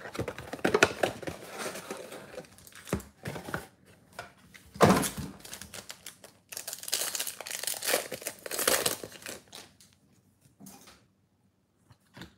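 Packaging crinkling and tearing as a box of baseball card packs is opened by hand: irregular rustles of wrapping and cardboard, with a louder crinkle about five seconds in. It dies down about ten seconds in, leaving only a few soft clicks.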